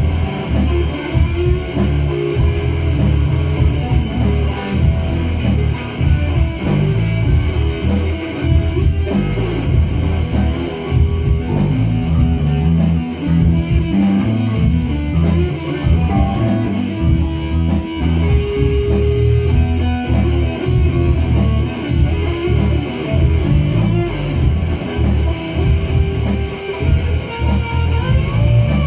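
Amplified electric guitars played together in a live jam, steady chords and riffs with a strong low end throughout.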